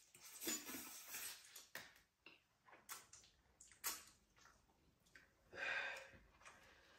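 Faint mouth sounds of people eating noodles: a few short slurps and soft clicks, with a breathy puff about five and a half seconds in.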